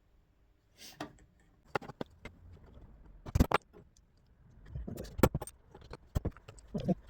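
Small parts of a chop-saw handle being handled and fitted: scattered sharp clicks and taps of plastic and small metal pieces such as screws and washers, with one louder click about halfway through and a quick run of taps near the end.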